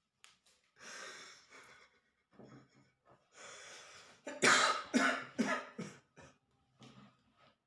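A man breathing hard in heavy, breathy gasps, then coughing hard about four times in quick succession, followed by a few quieter coughs and breaths.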